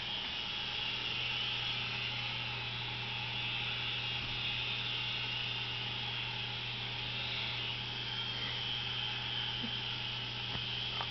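Air Hogs Havoc toy remote-control helicopter in flight: the steady high-pitched whir of its small electric motors and spinning rotors, with a low hum beneath.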